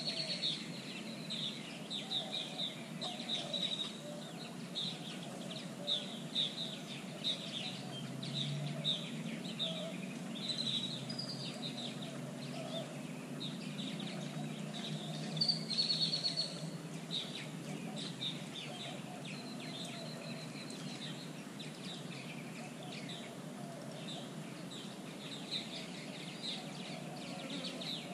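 Wild birds calling: a steady run of short, high chirps, thicker in the first half, over a low steady background noise.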